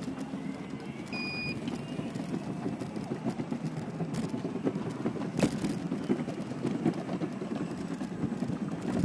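Steady rolling rumble of small hard electric-skateboard wheels on paving slabs, with sharp clicks here and there as they cross joints. A short high beep sounds about a second in.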